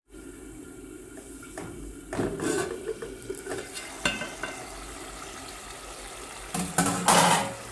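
Tomato sauce simmering and bubbling in an aluminium pot, with knocks and clanks as the aluminium lid is handled and lifted off, and a louder clatter of pot and lid near the end.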